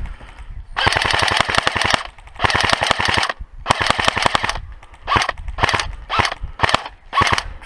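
Airsoft electric guns firing on full auto: three sustained bursts of about a second each, then five short bursts in quick succession near the end.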